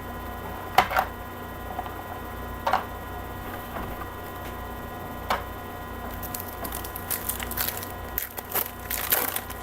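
Trading-card pack wrappers and cards being handled and tidied away: a few separate clicks and taps, then a busy run of crinkling and rustling from about six seconds in.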